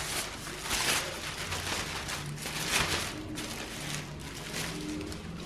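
Thin plastic garbage bag rustling and crinkling as it is handled and draped over an oven, in irregular bursts.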